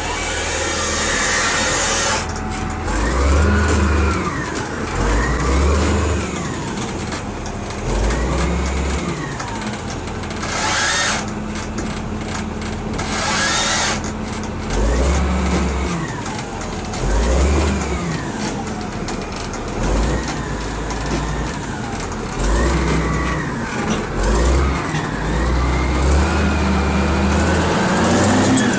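Heavy machine's engine revving up and down over and over as it works, with a rising and falling whine about every two to three seconds. Short bursts of air hiss come near the start and again around the middle.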